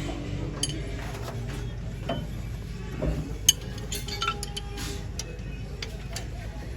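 Scattered light metallic clinks and taps over a steady low hum.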